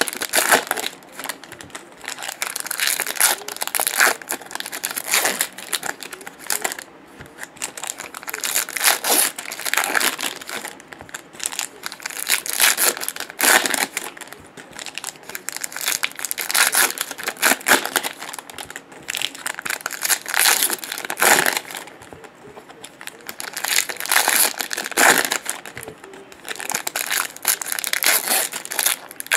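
Foil trading-card pack wrappers crinkling as packs are picked up, handled and set down one after another, a loud burst of crackling every few seconds.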